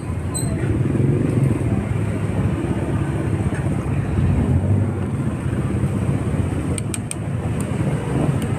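Steady low rumble of street traffic with motor vehicles running nearby, with a few sharp clicks about seven seconds in.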